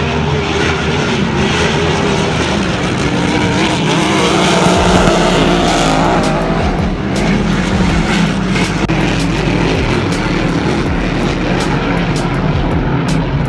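Grand Prix hydroplane race boats running flat out on the course, a loud steady engine drone that swells as a boat passes closest about five seconds in.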